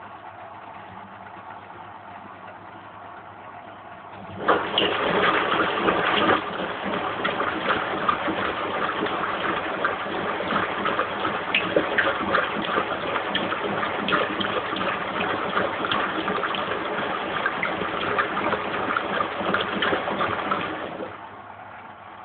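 Lynx 4TS-710A washing machine, running empty on its final rinse: loud rushing water starts suddenly about four seconds in and keeps on steadily until near the end, when it stops and leaves a low hum.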